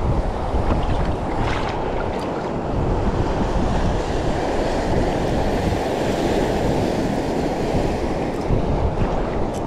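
Wind buffeting the microphone over the steady wash of rough sea waves.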